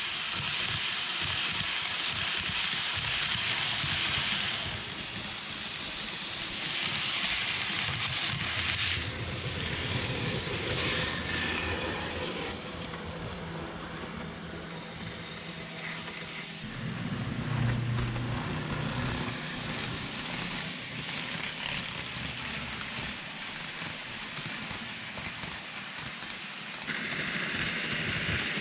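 N-gauge model trains, among them a KATO E257-2000 'Odoriko' set, running on the layout track: a steady rattling hiss of metal wheels on the rails. It swells and eases as trains pass close by, with a low motor hum standing out about two-thirds of the way through.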